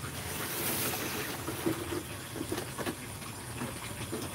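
Paper and cardboard packaging being handled and unwrapped. A burst of crinkling in the first second is followed by light scrapes and taps as the box is pulled free.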